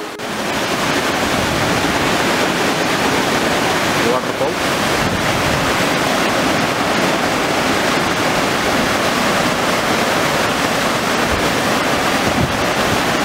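Waterfall pouring into a rock pool: a loud, steady rush of water.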